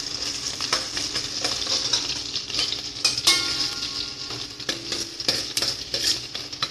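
Sliced shallots and curry leaves sizzling in hot oil in a steel kadai while a steel ladle stirs them, scraping and clinking against the pan. This is the sautéing stage, with the onions frying until soft.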